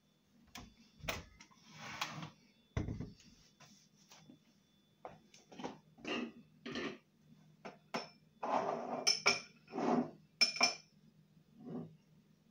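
Irregular knocks and clinks of a glass blender jug and kitchen things being handled on a worktop, the jug lifted off its motor base and set down. The blender motor is off.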